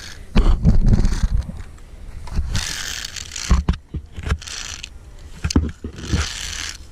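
Metal clicks and rubbing of climbing-harness clips and trolley gear on a steel cable, with several sharp separate clicks in the middle. Low thumping against the microphone near the start.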